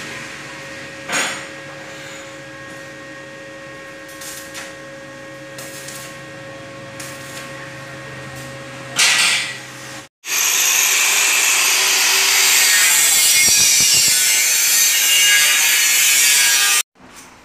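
Electric arc welding on steel railing fittings: a steady electrical hum with two short crackling bursts from the arc. After an abrupt cut, a loud steady hiss runs for about seven seconds and stops suddenly.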